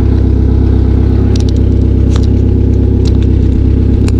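1999 Kia Sportage's four-cylinder engine running steadily at idle, loud, with an exhaust that needs fixing. A few faint clicks sound over it.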